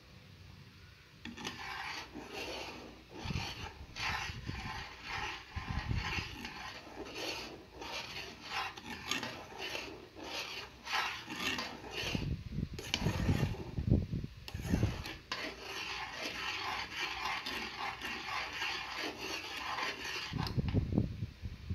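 Metal spoon stirring a sauce in a nonstick saucepan, scraping against the bottom and sides of the pan in repeated irregular strokes.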